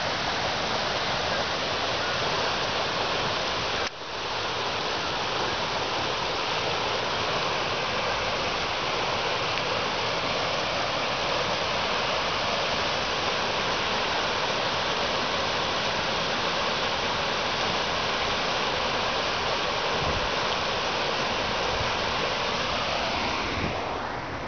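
Fast, swollen creek water rushing over rocks in the outflow channel below a dam: a steady, even rush. It cuts out for an instant about four seconds in and falls off a little near the end.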